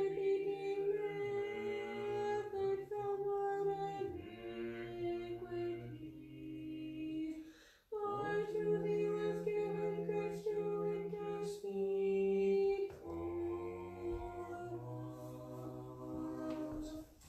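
Unaccompanied voices singing Orthodox liturgical chant in harmony, in a few long, held phrases with short breaks between them.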